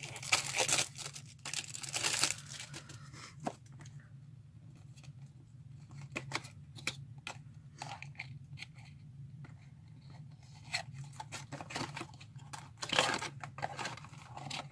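Packaging being torn open and handled: bursts of tearing near the start, around two seconds in and again near the end, with scattered scratches and clicks between.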